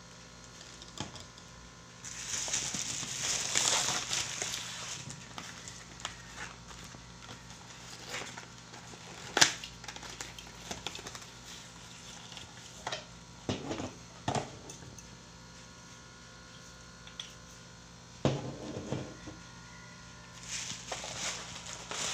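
Packaging being handled: plastic wrapping crinkling and rustling, loudest for a few seconds near the start and again near the end. Between them come scattered clicks and knocks of plastic and cardboard items being handled, the sharpest about nine seconds in.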